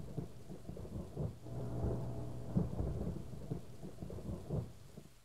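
Thunderstorm sound effect: low rumbling thunder over steady rain, fading away near the end.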